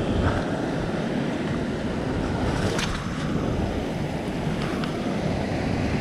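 Ocean swell surging and washing against a rock ledge, with wind buffeting the microphone throughout.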